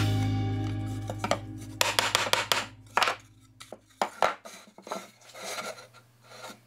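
Knocks and scraping of wood on wood as rough-cut cedar boards with box-joint fingers are handled, set on the workbench and pushed together by hand in a dry fit. Background music fades out over the first couple of seconds.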